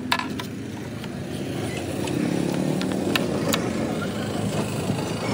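A vehicle engine runs steadily and grows slightly louder about two seconds in. A few sharp clicks come from tools and cable parts being handled.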